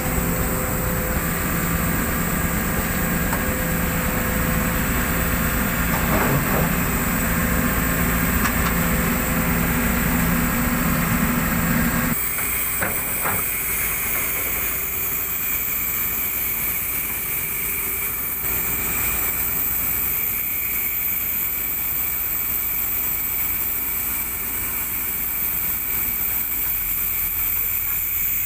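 Diesel engines of hydraulic excavators running with a steady, even drone. About twelve seconds in, the sound changes abruptly to a steady hiss, with the engine hum fainter beneath it.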